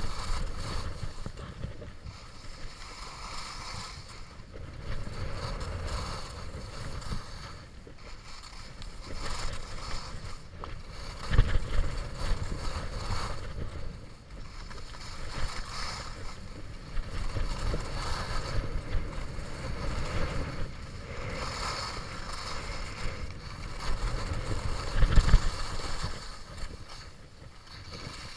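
Skis hissing and scraping over groomed snow through a series of turns, the sound swelling and fading every couple of seconds, with low wind rumble on the microphone. Two louder rumbling surges come about a third of the way in and near the end.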